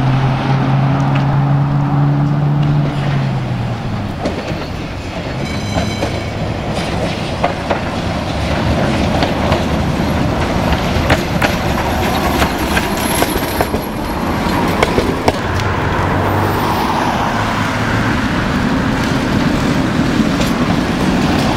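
Tatra trams running on street track: a steady low hum at first that dips slightly in pitch about three seconds in, then the running noise of the cars with many sharp clicks of wheels passing over rail joints and points, and a brief high ring near six seconds.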